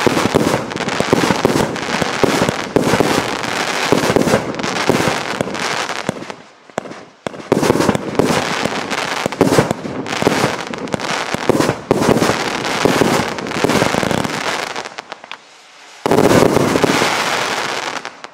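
A 36-shot, 1.2-inch consumer fireworks cake firing: a rapid, near-continuous string of launch shots and aerial bursts. There is a short lull about seven seconds in, and the firing dies down around fifteen seconds. A loud final volley follows and fades out at the very end.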